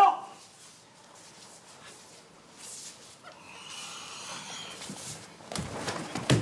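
A sharp shouted kiai at the very start, its pitch falling as it ends. Then soft rustling of karate gi, and a quick run of sharp knocks near the end, from strikes and bare feet on the wooden dojo floor.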